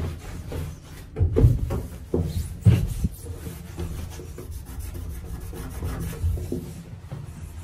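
A cloth rubbing over a bathtub rim and wall tiles, wiping them dry in quick irregular strokes, with two louder bumps a little over a second and nearly three seconds in.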